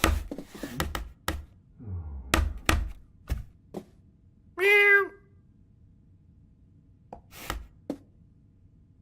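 A cat meows once, about halfway through, after a rapid series of knocks and thuds; a couple more thuds come near the end.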